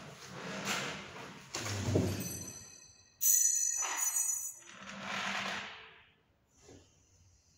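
Electric stand-up reach truck's hydraulics and motors: hissing surges, then a sudden loud high-pitched whine for about a second, then another hissing swell, as the raised mast and its load are worked.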